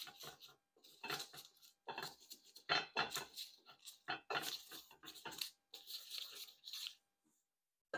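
Irregular bursts of kitchen handling noise, clattering and scraping of pans and utensils, coming and going every second or so.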